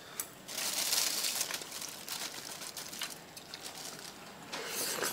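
Plastic food packaging rustling and crinkling in irregular bursts, with small clicks between them.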